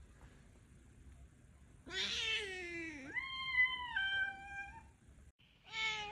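A cat's long meow, starting about two seconds in and lasting about three seconds: it first falls in pitch, then holds on two steady notes, each lower than the last. After a brief drop-out near the end, another cat's short meow begins.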